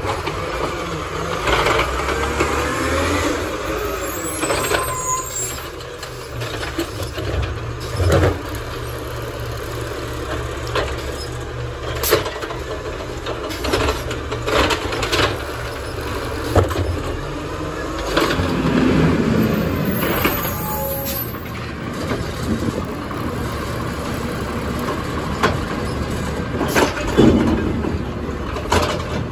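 Peterbilt 320 garbage truck with an Amrep automated side-loader arm working at the curb: the natural-gas engine runs steadily under the hydraulic arm as it lifts and dumps carts. Sharp knocks are heard several times as the carts bang against the hopper, and short gliding whines come from the arm's hydraulics.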